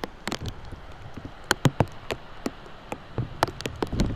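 Heavy rain: large drops tapping irregularly close to the microphone, several a second, over a steady hiss of rain.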